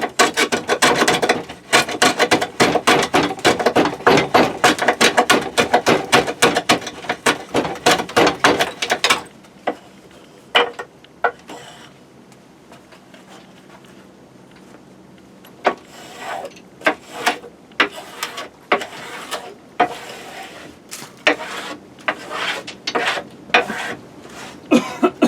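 Wood being scraped or rasped by hand in quick back-and-forth strokes, about four a second, for roughly the first nine seconds, then slower, scattered strokes after a short pause.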